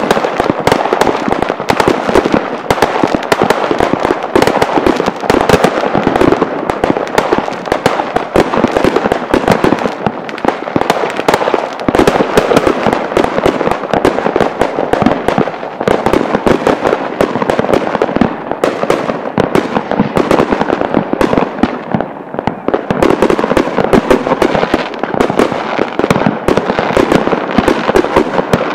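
Consumer aerial fireworks going off in a rapid, unbroken stream of overlapping bangs and crackles, many shots at once. The stream thins briefly a little past twenty seconds in, then picks up again.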